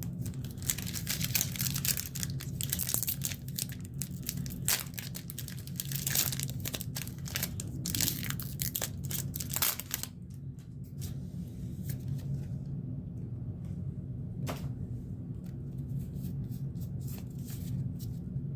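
Foil wrapper of a Pokémon trading card booster pack crinkling and tearing open for about ten seconds, then quieter handling with a few sharp clicks, over a steady low hum.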